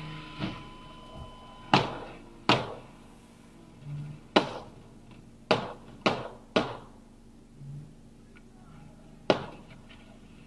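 A series of sharp knocks or thuds at uneven intervals, about eight in all, picked up by a dash cam's microphone inside the car.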